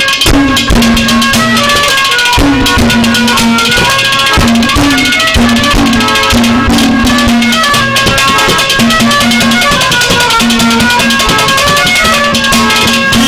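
Instrumental interlude of live Haryanvi ragni folk accompaniment: a melody instrument playing a stepping tune over dense drum beats and rattling percussion.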